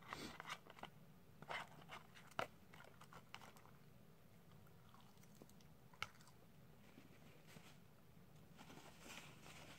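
Plastic fork scraping and clicking against a paperboard fry tray while digging out cheesy fries during the first few seconds, then soft eating sounds of chewing. A single sharp click comes about six seconds in.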